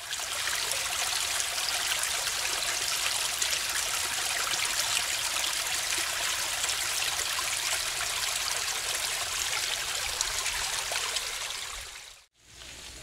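Small, shallow woodland brook running over pebbles and fallen logs, a steady flowing rush of water. It cuts off abruptly near the end.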